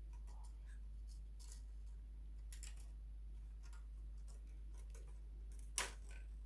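Faint, scattered clicks and taps of small machine parts being handled during a floppy-drive repair, with one sharper click near the end, over a steady low hum.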